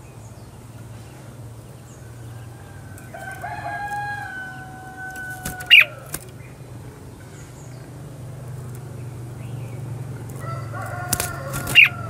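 A rooster crowing twice: one long, slightly falling crow over about three seconds in the middle and a shorter one near the end. Loud, sharp chirps from a caged red-whiskered bulbul cut in at about six seconds and again just before the end.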